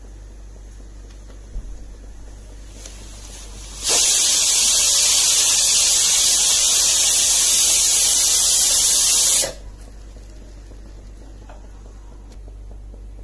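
Butterfly glass-lid pressure cooker whistling: the weighted valve lifts and steam hisses out loudly for about five and a half seconds, starting suddenly about four seconds in and cutting off sharply. The release is the sign that the cooker has come up to full pressure.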